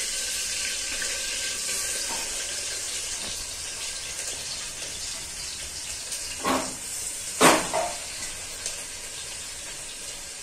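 Chopped onion sizzling in hot oil in a pressure cooker, a steady hiss that slowly fades. A little past halfway the steel plate knocks twice, about a second apart, the second knock the loudest sound.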